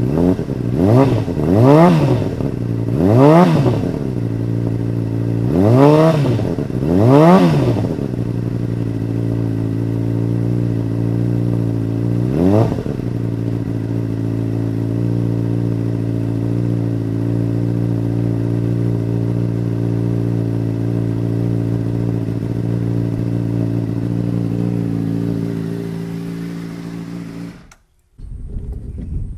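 2008 Honda CBR600RR's inline-four running through a Two Brothers carbon slip-on exhaust. It is blipped five times in quick succession over the first few seconds, revved once more a few seconds later, then settles into a steady idle. It cuts off suddenly near the end.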